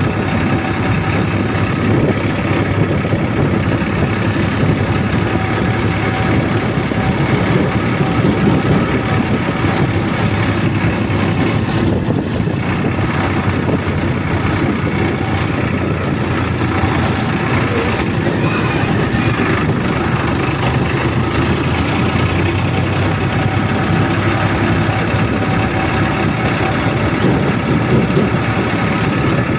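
Vehicle running steadily: a constant rumble of engine and travel noise that holds the same level throughout.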